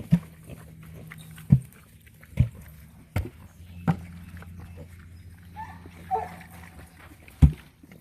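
Pigs grunting: about six short, sharp grunts spread over several seconds above a steady low background rumble, with a fainter higher-pitched squeal about six seconds in.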